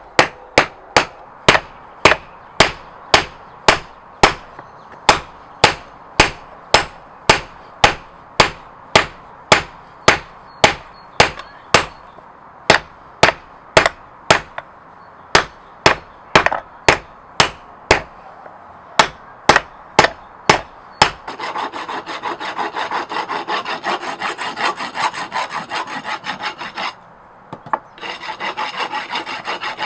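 A hammer striking steel at an even pace, about two blows a second, for the first two-thirds, stopping about 21 s in. A continuous rasping of a hand tool worked back and forth across the steel follows, with a brief pause near the end.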